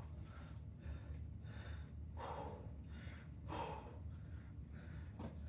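A man breathing hard and fast after an exercise set, a quick run of heavy breaths about every two-thirds of a second, over a steady low hum.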